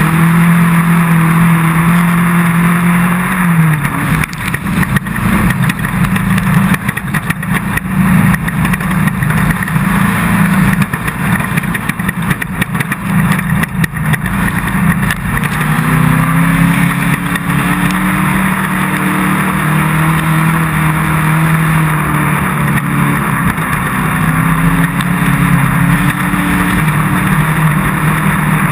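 Off-road race car engine running hard at a steady pitch, easing off a few seconds in. For about ten seconds a rough run of knocks and rattles from the car over bumpy ground covers it, then the engine pulls steadily again with small rises and falls in pitch.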